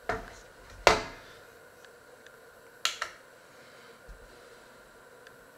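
Knocks and clinks of a stainless steel mixing bowl and a digital kitchen scale being handled on a wooden cutting board. The loudest, ringing clink comes about a second in, and a sharp double knock comes near the middle.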